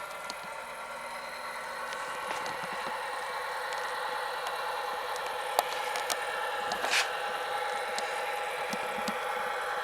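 Model locomotive Tsunami sound decoder playing a diesel engine idling through a tiny speaker, thin and with no low end, slowly getting a little louder. A brief hiss about seven seconds in.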